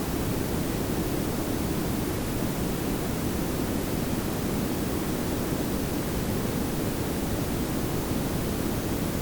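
Layered pink and brown noise: a steady, smooth hiss over a low rumble, with no change over time.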